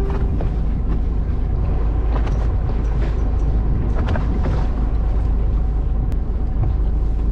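Steady low rumble of a small fishing boat out on the water, with a few faint clicks.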